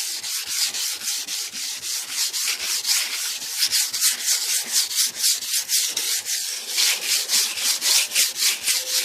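Sandpaper scraping over the painted body of a 1988 Cadillac DeVille in quick back-and-forth strokes, about three to four a second, scuffing the old paint so new paint will stick.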